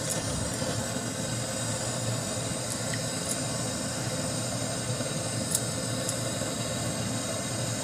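Steady hiss of a cooking stove heating a kadai of water and rice, with a few faint ticks.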